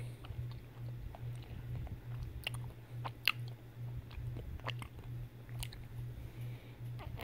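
Close-up chewing of chocolate, with scattered small mouth clicks, over a steady low hum.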